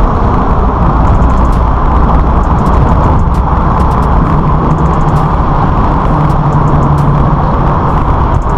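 Nissan 370Z's 3.7-litre V6 running through its modified exhaust at a steady cruise, with the engine note holding level, heard from outside the car while it drives through a concrete underpass.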